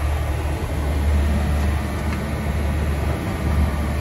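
Sailboat's Yanmar diesel auxiliary engine running steadily under way, a constant low drone, over a haze of wind and sea noise.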